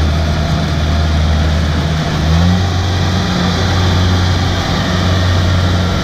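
Tracked rice combine harvester's diesel engine running steadily as the machine drives along, its pitch rising slightly about two seconds in.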